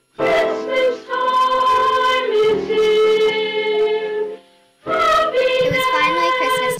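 A choir singing a slow, gentle song in long held notes, in two phrases with a short break about four and a half seconds in.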